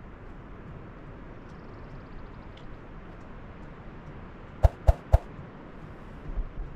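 Outdoor background with chickens clucking and a faint high, rapid trill from a small bird. About four and a half seconds in come three sharp clicks in quick succession, the loudest sounds here.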